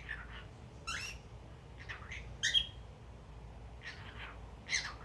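Male cockatiel chattering in a string of short chirps and squawks, about six brief calls with short pauses between, the loudest about halfway through.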